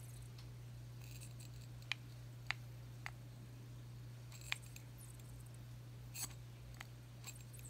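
A string of short, sharp clicks at irregular intervals from a Zerostat anti-static pistol's piezo trigger being squeezed to discharge ions, over a steady low hum.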